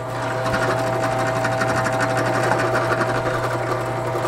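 Drill press motor running steadily with an even hum, a number 6 countersink bit drilling screw holes in wood.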